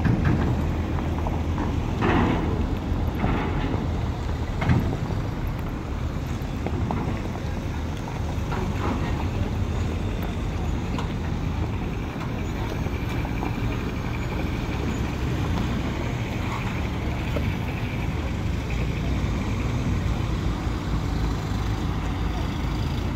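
Diesel engine idling with a steady low rumble.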